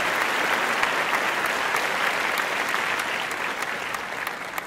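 Audience applauding, the dense clapping fading out near the end.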